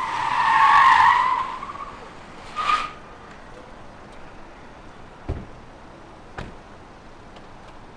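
Car tyres squealing for about a second and a half as the sedan swings round and stops, with a second short chirp about a second later. Two car doors then shut, about a second apart.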